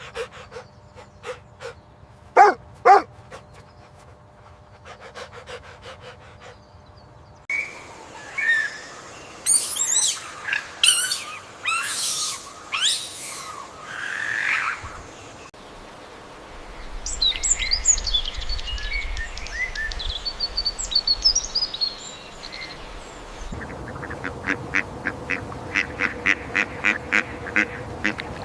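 A run of different animal recordings one after another: short repeated chirping calls, then a stretch of varied calls, then, from near the end, a fast, even run of duck quacks.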